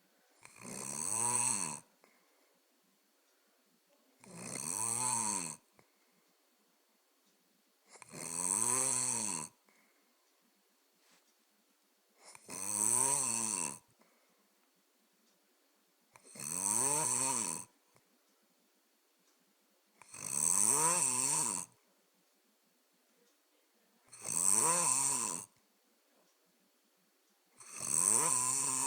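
Steady, rhythmic snoring: eight snores, about one every four seconds, each lasting about a second and a half with a rasping pitch that rises and falls, and quiet breathing between them.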